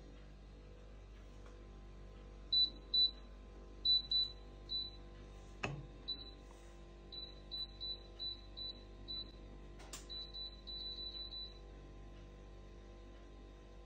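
KOMKLI air fryer's touch control panel beeping once per finger tap, short high beeps close to twenty times, some in quick runs near the end, as the temperature setting is stepped down. Two sharp clicks sound about 6 and 10 seconds in.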